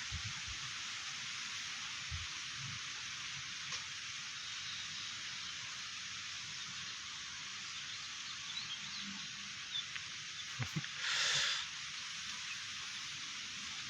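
Strong wind hissing steadily through coconut palm fronds and leaves, with a brief louder gust a little before the end and a few faint low knocks.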